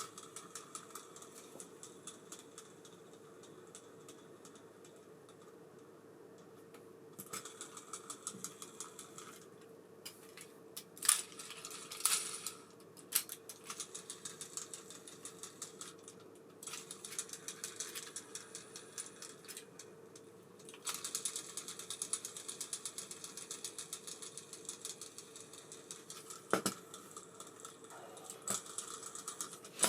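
Abu Garcia Ambassadeur 5500C baitcasting reel being worked by hand: stretches of rapid mechanical ticking and clicking, with a few sharper, louder clicks around the middle, over a faint steady hum.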